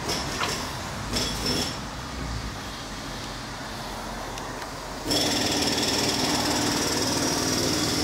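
A small electric motor in the car runs steadily for about three seconds, starting about five seconds in, with a steady low tone and a steady high tone. A shorter run of the same kind comes about a second in.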